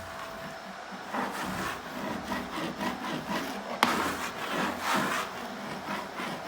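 A hand tool rubbing over wallpaper on a wall in repeated strokes, about two a second, smoothing the paper down over glue worked in behind it to flatten ridges. One sharp click a little past the middle.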